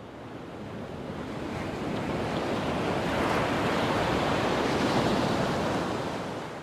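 Rushing wash of waves: a steady surf sound that fades in, swells through the middle and fades away near the end.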